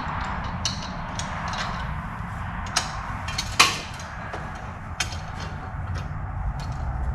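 Scattered metallic clicks and knocks of tools and parts being handled while a miter saw stand is put together, with one sharp clank that rings briefly about three and a half seconds in, over a steady low rumble.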